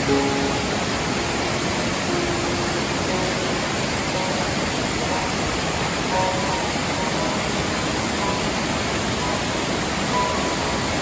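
Steady rushing of a waterfall, with a few soft, sparse music notes sounding faintly beneath it.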